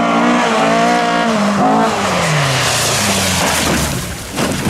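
Historic rally car's engine revving hard, its pitch gliding down about halfway through as the car passes close by, with gravel hissing from the tyres. A short sharp crack comes near the end.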